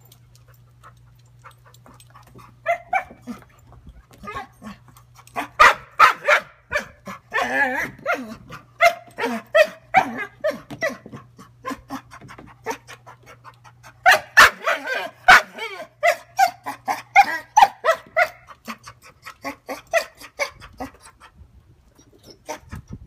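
A dog barking and yipping at a ball floating out of reach in a wading pool, in two long runs of quick calls with a short pause between them.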